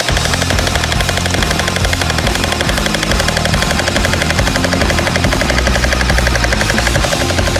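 Battery-powered toy gel blasters firing on full auto, a fast steady rattle of shots that runs without a break, over background music with a stepping bass line.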